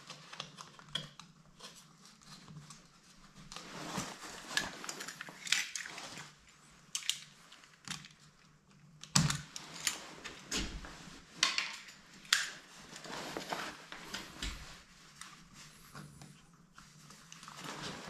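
Irregular plastic clicks, taps and scrapes of a wall thermostat being handled and its cover unclipped, with clothing rustle; the clicks are busiest in the middle.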